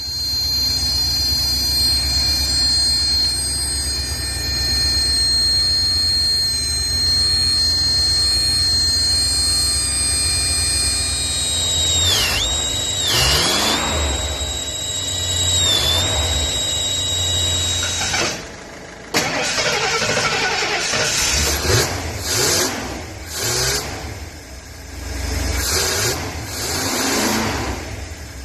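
Ford F250 engine running under the bonnet with a steady high-pitched squeal. The squeal dips in pitch briefly three times and stops about 18 seconds in, after which the engine runs on with irregular knocks and rustling.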